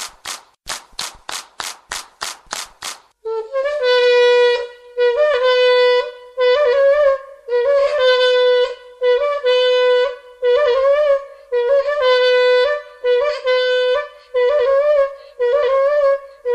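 Instrumental music. A dry rhythmic rattling at about three strokes a second stops about three seconds in. A wind instrument then takes over, playing short phrases of repeated notes on nearly one pitch, each about a second long.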